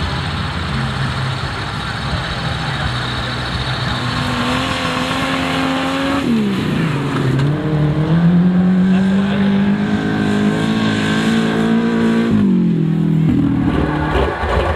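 At first, a hissing spray of water over a truck engine running. From about four seconds in, a truck engine revving hard under acceleration: its pitch holds, drops sharply about six seconds in, climbs and holds again, and drops once more near the end, as it changes gear.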